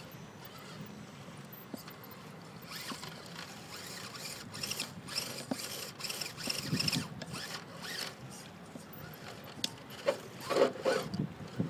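Electric RC rock crawler's 35-turn brushed motor and geared transmission whirring in short stop-start bursts as it creeps over rocks. A few louder knocks come near the end.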